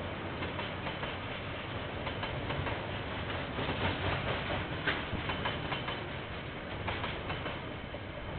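Freight train of container wagons rolling past: a steady rumble of steel wheels on rail with irregular clicks, heard through a security camera's microphone.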